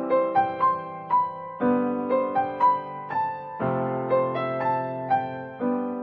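Background piano music: single melody notes struck about twice a second over held chords that change about every two seconds.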